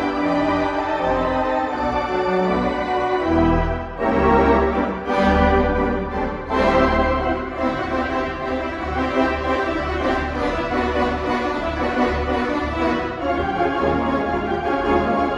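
Wurlitzer theatre pipe organ playing sustained chords. A deep pedal bass comes in about four seconds in, and the music grows fuller from there.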